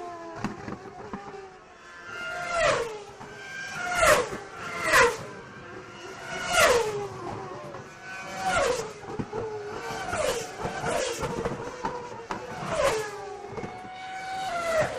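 Race cars passing one after another, about nine in a row, each high engine note dropping sharply in pitch as it goes by.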